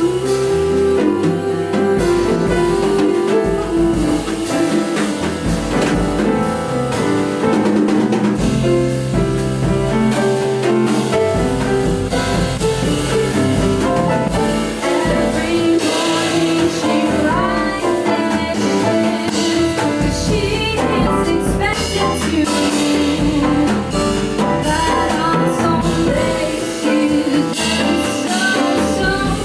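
Live jazz played on piano, drum kit and bass guitar, with a woman's voice singing over the band in the second half.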